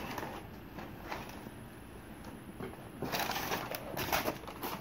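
Rustling and crinkling of packing and items being rummaged through in a cardboard box, starting about three seconds in after a quiet stretch.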